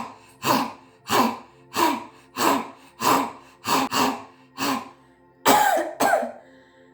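A woman's forceful 'haa' exhalations with the tongue out, lion-pose (simhasana) breathing, repeated about three every two seconds. The last two are louder, with the voice falling in pitch. They are harsh and cough-like.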